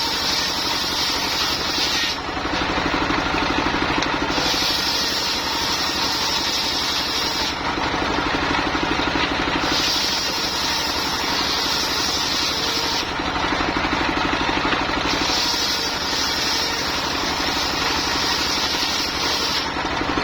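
Engine-driven mobile circular sawmill running steadily while its blade cuts lamtoro (leucaena) wood, with the higher-pitched cutting sound coming in passes of a few seconds each, four times.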